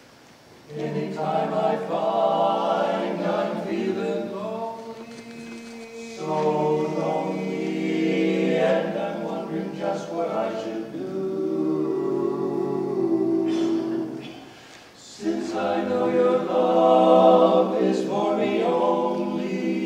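Male barbershop quartet singing a cappella in close four-part harmony. The singing starts about a second in, with short breaks between phrases about six seconds in and near fifteen seconds.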